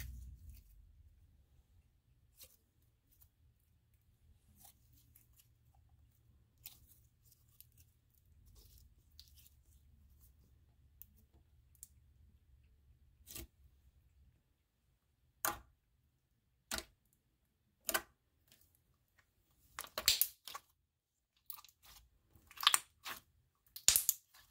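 Thick clear slime being pressed and stretched by hand. It gives faint sticky ticks for the first half, then a run of sharp pops and crackles, loudest in clusters near the end.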